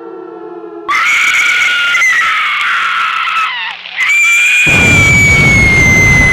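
Jump-scare ending of a homemade Emergency Alert System alarm. A quiet low droning chord breaks off into a loud, high-pitched, scream-like shriek that wavers and bends, then holds one long tone sliding slowly down in pitch. A loud low rumble sounds under it from about four and a half to six and a half seconds in.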